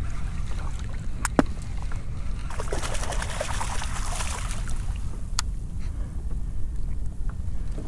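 Steady low rumble of wind and water on the move, with two sharp clicks and a hissing, splashy burst for about two seconds in the middle.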